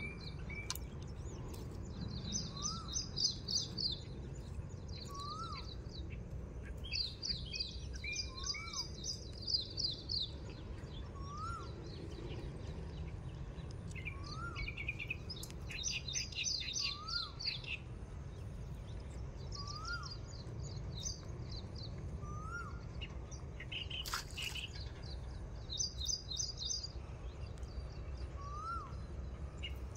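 Birds calling in mangroves: one bird repeats a short rising whistle every two seconds or so while others break in with bursts of high, fast chattering trills. A steady low rumble runs underneath, and a single sharp knock comes about three-quarters of the way through.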